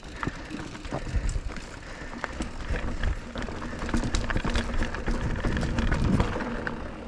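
Mountain bike riding over rough, rocky trail: the bike rattles and clicks with many small knocks from the rough ground, over a low rumble that swells a second in and again near the end.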